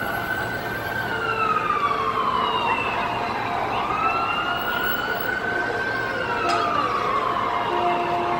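Emergency vehicle siren sounding a slow wail: the pitch jumps up and then glides slowly down, a cycle about every four to five seconds, over steady city street noise.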